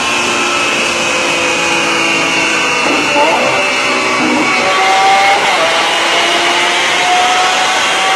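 Lamborghini Aventador's V12 running hard under load on a chassis dynamometer: a loud, steady engine and exhaust noise with a whine that climbs slowly in pitch in the second half.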